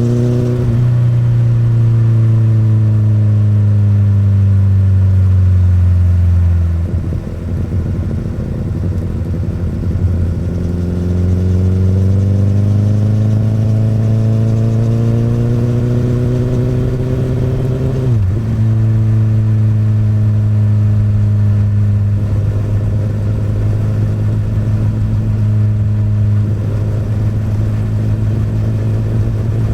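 Honda CBR1000RR (SC59) inline-four through an Akrapovic exhaust, the bike being ridden: the engine note falls as it slows, rises steadily under throttle for several seconds, drops abruptly about two-thirds through at a shift or throttle close, then holds a steady note.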